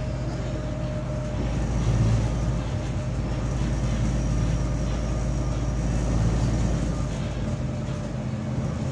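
Wright Gemini 2-bodied VDL DB300 double-decker bus's diesel engine and drivetrain running under way, heard inside the passenger saloon. It is a steady low drone that swells louder about two seconds in and again about six seconds in.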